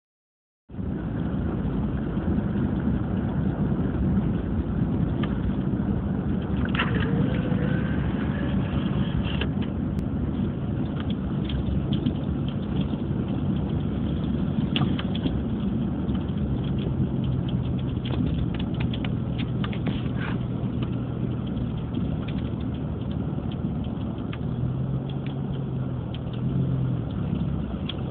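Steady car engine and road noise, a continuous low hum with scattered light clicks.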